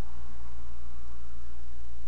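Room tone: a steady low hum with a faint hiss. The cat is not chirping.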